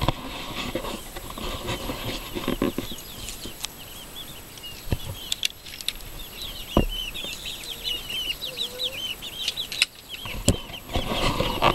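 Chickens clucking and chirping in quick runs of high notes, with a few sharp knocks and clicks as the coop's wooden door and latch are opened.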